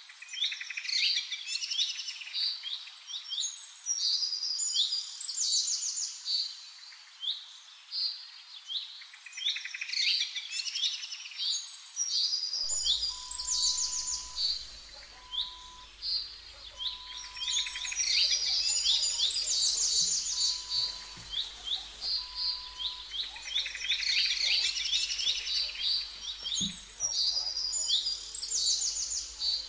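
Small songbirds singing without a break: quick, repeated chirps and fast trilled phrases that overlap one another.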